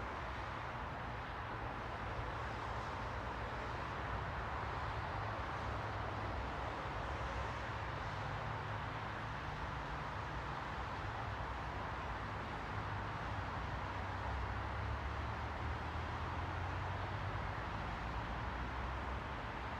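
Steady ambient noise with a low rumble underneath, like a constant background wash; no single event stands out.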